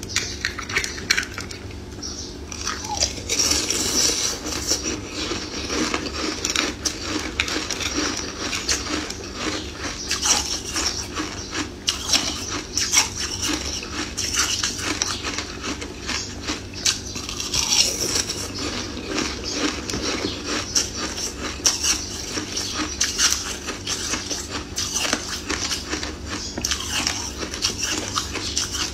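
Close-miked biting and crunching of a clear ring of ice, with many irregular crisp cracks and crunches.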